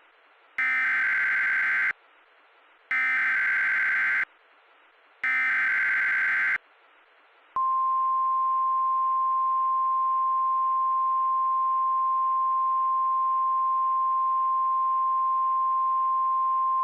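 Emergency Alert System SAME header: three identical bursts of warbling digital data tones, each about a second and a half long, with short gaps of faint hiss between them. A little over seven seconds in, a single steady alert tone near 1 kHz starts and holds, the 1050 Hz NOAA Weather Radio warning tone that signals an alert is about to be read.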